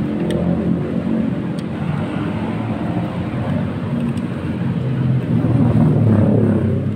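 Road traffic passing close by: car and motorbike engines and tyres in a steady rumble that swells about six seconds in as a motorbike goes past.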